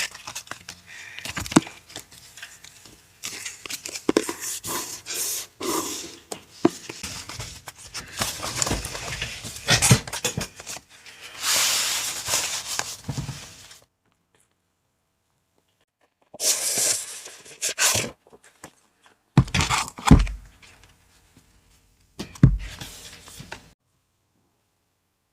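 Paper packaging and paper goods being handled and unwrapped: crinkling, rustling and tearing in irregular bursts, pausing briefly about two-thirds of the way in, then a few more rustles with some dull thumps as things are set down.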